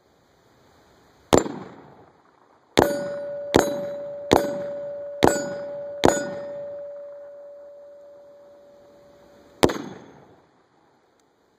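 Seven 5.56x45 FMJ rifle shots hitting 3/8-inch AR500 steel target plates with sharp clangs. After one single shot come five quick shots about a second apart, then one more after a pause of a few seconds. From the second shot on, the struck plate rings with one steady tone that slowly fades between the hits.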